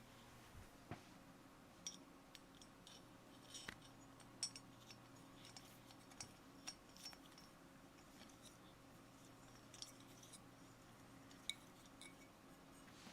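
Faint, scattered small clicks and clinks of metal heater parts being handled and turned over, a sharper click about four seconds in and another near the end, over a low steady hum.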